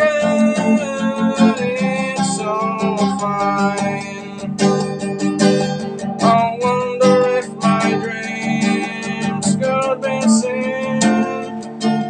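A man singing while strumming an acoustic guitar with a capo.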